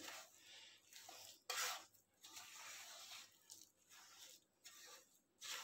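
Wooden spatula stirring and mashing a crumbly wheat-flour and jaggery-syrup mixture in a stainless steel pan: faint, irregular scraping and squishing strokes, the loudest about a second and a half in and another near the end.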